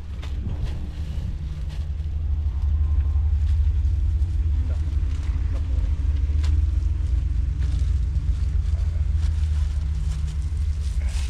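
Steady low rumble with a faint hum above it, and a few light clicks scattered through.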